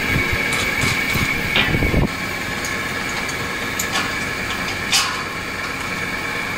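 Steady machine hum with a high, even whine, over knocks from handling a steel frame in the first two seconds and a few sharp metallic clicks, the loudest about five seconds in.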